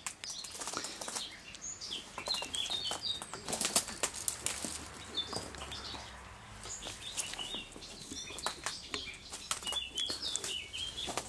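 Branches, twigs and leaves rustling and cracking underfoot and against the body as someone pushes through dense brush, with songbirds chirping throughout.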